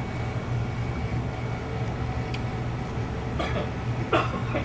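Steady low background hum, with a faint click and brief murmurs of voices near the end.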